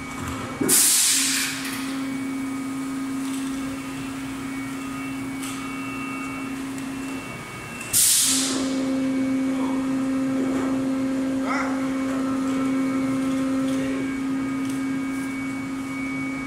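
PET preform injection moulding machine running: a steady hum throughout, broken by two loud short hisses of air, about a second in and about eight seconds in. The hum drops out briefly just before the second hiss.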